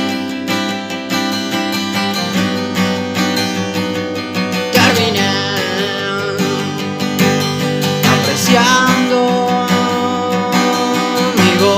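Music: a strummed acoustic guitar, joined about five seconds in by a wavering, gliding melody line.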